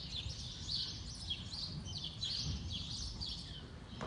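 Small birds chirping, many short high calls that fall in pitch, overlapping one after another, over a low rumble.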